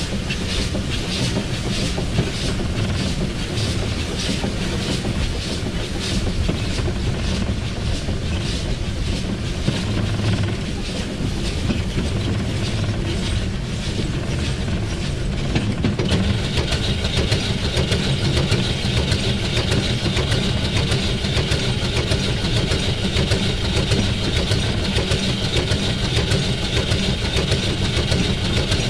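Cab sound of the 1910 SJ E2 steam locomotive under way, with regular beats about twice a second over a low rumble. The beats fade out by about the middle, and about 16 s in a steady hiss sets in and continues.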